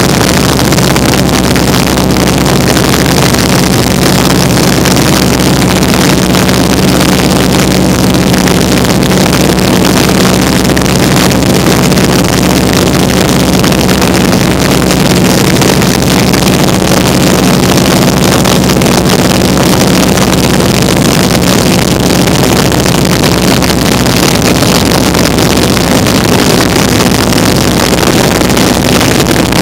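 Loud, steady drone of a vintage open-cockpit biplane's radial engine and propeller in cruising flight, with wind rushing over the open cockpit.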